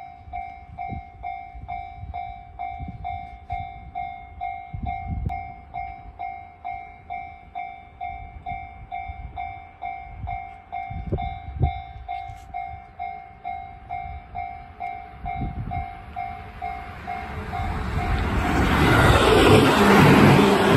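Japanese level-crossing warning bell ringing at about two dings a second. From about 17 seconds in an electric train comes through the crossing, its rumble and wheel clatter growing loud and covering the bell near the end.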